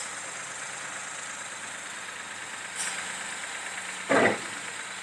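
Powertrac 435 tractor's diesel engine running steadily at idle, with one short louder burst about four seconds in.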